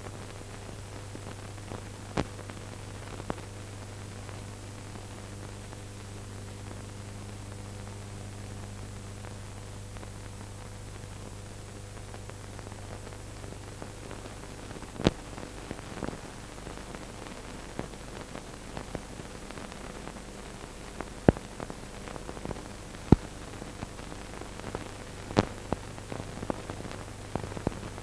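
Steady hiss and low hum with scattered sharp clicks and pops: playback noise of an old film transfer with no recorded sound. The hum fades away about halfway through and comes back near the end, while the clicks come more often in the second half.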